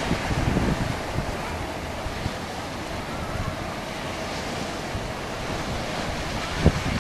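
Wind buffeting the microphone over the steady wash of the sea, with a short gust thump near the end.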